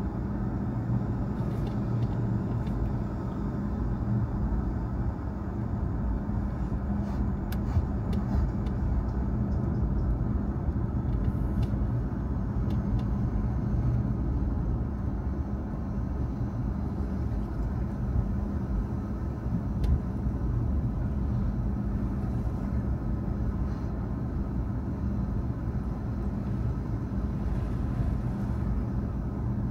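A car being driven: steady engine hum and road noise, with a few faint clicks.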